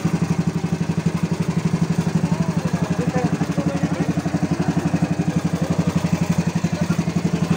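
Motorized outrigger boat's engine running steadily with a rapid, even pulse.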